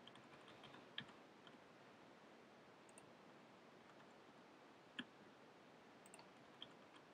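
Near silence with a few faint computer mouse clicks, the two plainest about a second in and about five seconds in.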